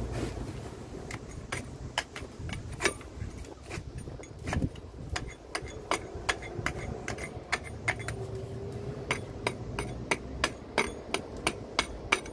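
Hand hammer knocking out soft old mortar from the joints of a brick wall: a string of sharp taps, irregular at first, then quickening to about three a second near the end.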